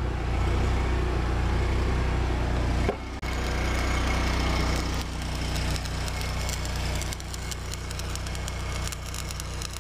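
Stick (shielded metal arc) welding on steel: the electrode's arc crackles and hisses steadily over a steady low hum. It cuts out briefly about three seconds in, then carries on.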